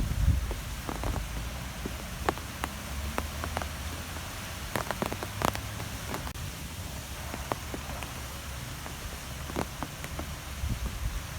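Wind blowing, with a low rumble and scattered light taps and ticks over a steady noise.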